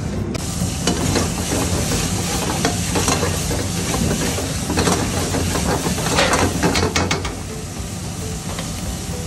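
Spices sizzling in hot oil in a steel wok while a metal ladle stirs and scrapes the pan, starting about half a second in. The scrapes and clinks come thickest a little past the middle and ease off near the end, leaving the sizzle.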